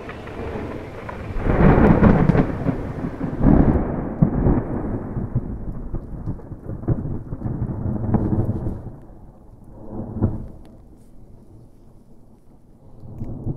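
Thunderstorm: rolls of thunder rumbling, loudest about two seconds in, with further rumbles around eight and ten seconds and again near the end, over rain.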